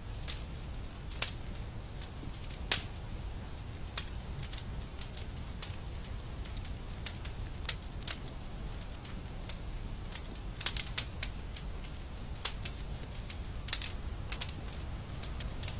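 Wood fire crackling in a fireplace: irregular sharp pops and snaps, a few louder cracks among many small ones, over a steady low rumble.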